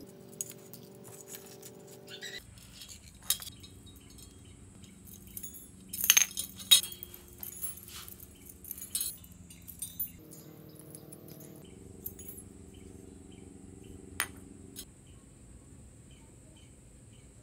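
Steel bicycle spokes clinking and rattling against the rim and hub as a small wheel is taken apart by hand, in scattered metallic clicks. The busiest, loudest run of clinks comes about six seconds in, and a single sharp click comes near the end.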